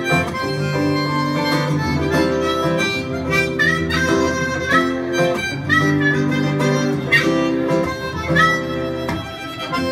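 Harmonica playing a melody, some notes sliding up into pitch, over a strummed acoustic guitar; an instrumental passage with no singing.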